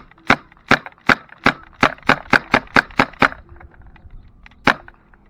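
Ruger P35 airsoft pistol being fired: about a dozen sharp shots in quick succession, roughly three to four a second, then a pause and one more shot near the end.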